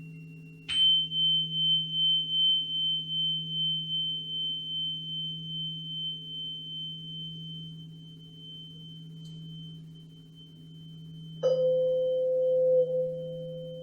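Struck metal sound-healing instrument: a high, pure ringing tone begins with a sharp strike just under a second in and pulses as it slowly fades. A second strike near the end brings in a lower ringing tone, all over a steady low hum.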